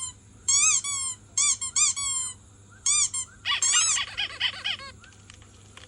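A series of short, high-pitched squeaks, each rising and falling in pitch and coming in quick groups, then a denser flurry of rapid chirping squeaks near the middle.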